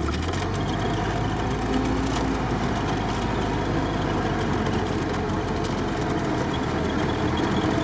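Off-road vehicle's engine running steadily at low revs, heard from inside the cabin as it creeps over a rough, muddy track, with light clattering from the body and interior.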